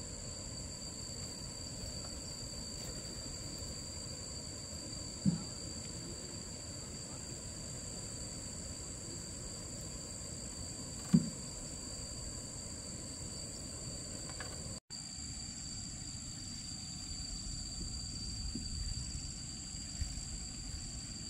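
Steady, high insect drone of crickets, two fixed shrill tones that carry on unbroken. Two short thumps break in, about five and eleven seconds in.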